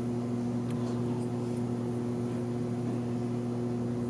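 Steady low hum with a couple of higher overtones, unchanging throughout, with a faint click about three-quarters of a second in.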